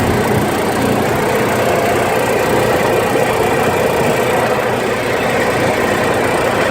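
Arctic Cat off-road vehicle's engine running steadily while driving along a trail.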